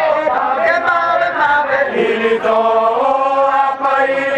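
Group of men singing a traditional Bajawa ritual chant together, holding long drawn-out notes that shift pitch every second or so.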